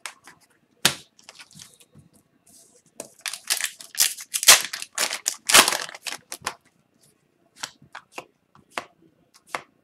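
A hockey card pack's shiny wrapper being torn open and crinkled, densest from about three to six and a half seconds in. A few light clicks and flicks of cards being handled come before and after.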